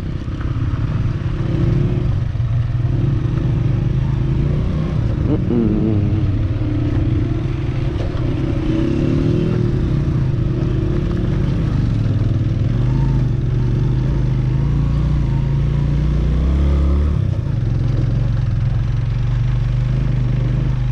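Motorcycle engine running under way over a rough, rocky track, its low note rising and falling a little.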